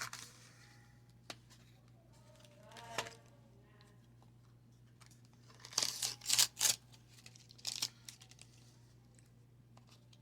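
Wax-paper card pack wrapper being torn and crinkled in a few short bursts, the loudest cluster about six seconds in, over a steady low hum.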